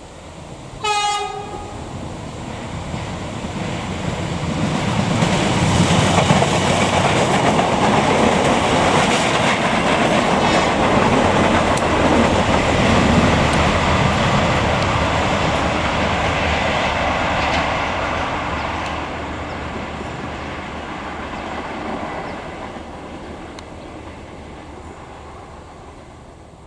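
A train sounds one short horn blast about a second in, then passes close by: its running noise builds, stays loud for about ten seconds and fades away over the last several seconds.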